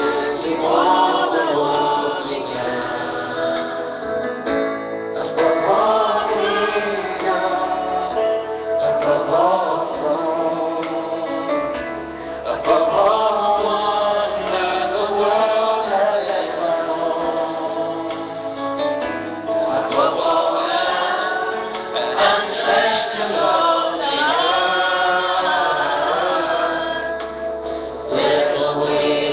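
Gospel worship singing: a group of men's and women's voices singing together over amplified musical accompaniment.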